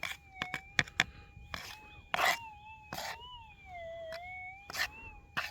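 Metal detector's threshold tone, steady but wavering slowly up and down in pitch, with a dip about four seconds in, as the coil is swept over a tiny piece of gold that only just sounds. It is broken by irregular sharp clicks and scrapes.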